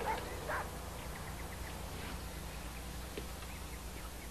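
Quiet room tone with a few faint footsteps, clearest in the first second.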